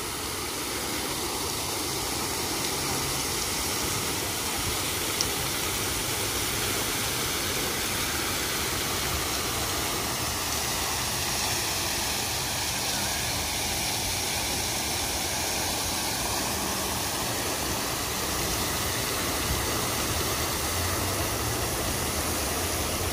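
Water spurting from a jet and splashing down close by: a steady rushing hiss.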